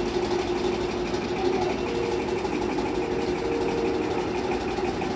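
A machine running steadily, a constant mechanical hum with a fast even ripple in it.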